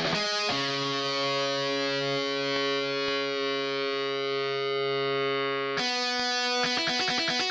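Distorted electric guitar: a chord rings out for about five seconds, then a fast, palm-muted chugging riff starts near the end.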